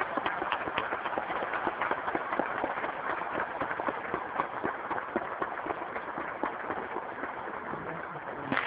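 A large arena audience applauding: many hands clapping steadily, a little quieter near the end.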